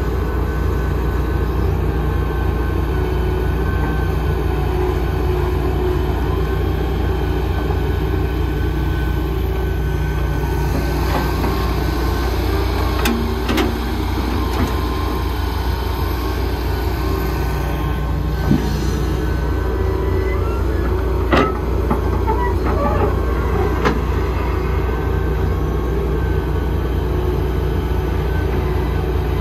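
Large excavator's diesel engine running steadily under work, with a few sharp knocks partway through.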